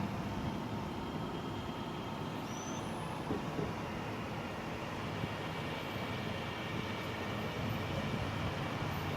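Steady engine rumble of a vehicle or heavy machine running, with faint steady whining tones above it.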